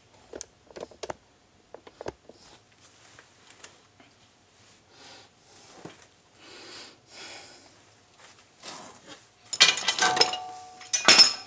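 Small clicks and soft rustling, then metal tools clinking and rattling against each other, loud and ringing, near the end.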